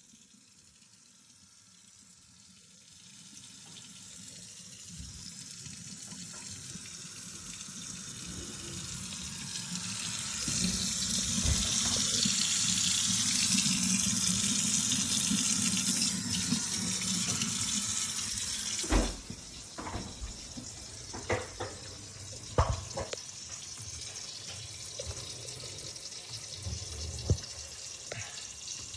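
A freshly repaired kitchen faucet runs water into the sink, growing steadily louder over the first ten seconds. About two-thirds of the way through the stream is cut back sharply. A lower trickle remains, with a few sharp knocks.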